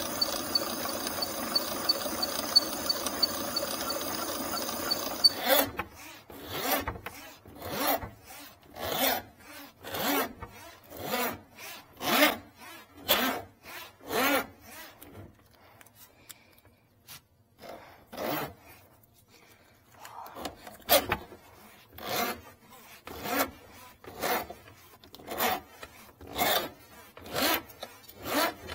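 A steady machine hum with a fast tick cuts off about five seconds in; then a drain snake's steel cable is pulled back out of the kitchen sink drain hand over hand, a rasping rub about once a second, with a pause of a few seconds midway.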